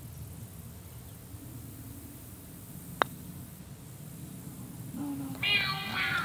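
A golf putter striking a golf ball on a putting green: a single crisp click about three seconds in, over faint steady background noise.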